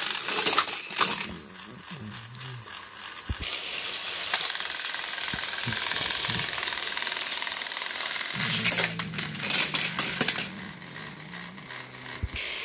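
Battery-powered Thomas & Friends toy engines running, a steady motor whir with the wheels straining on plastic track as they push against each other, and sharp clicks and plastic clatter from the toys and track being handled.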